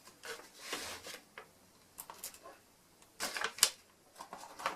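Small tools from a fibre optic tool kit being handled and put down: a scattered run of light clicks, taps and knocks with some rustling, the sharpest knock about three and a half seconds in.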